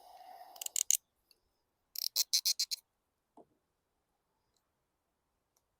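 Small carburetor parts being handled on a bench. A short scrape comes first, then a quick run of about seven light clicks around two seconds in, and one soft knock a moment later.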